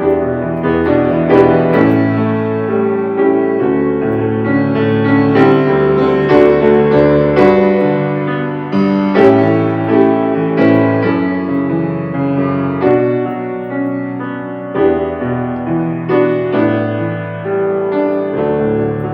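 Solo piano music: chords under a melody line, with new notes struck every half second or so.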